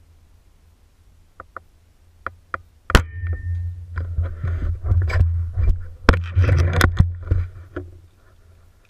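A single sharp shot from a Gamo Whisper suppressed break-barrel air rifle about three seconds in, picked up through the rifle-mounted camera. It is followed by several seconds of clunks, knocks and rubbing from the rifle being handled, which stop near the end.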